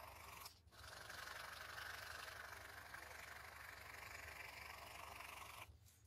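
Ballpoint pen scratching across paper in quick hatching strokes, faint, with a brief break about half a second in, stopping shortly before the end.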